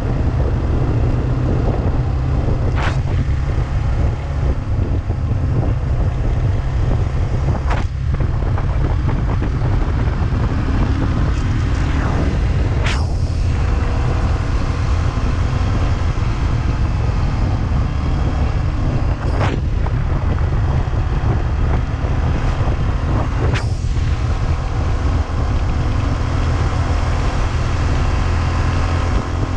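Yamaha TT600 motorcycle under way, its engine running steadily under a heavy low rumble of wind on the microphone. A few brief sharp noises cut through.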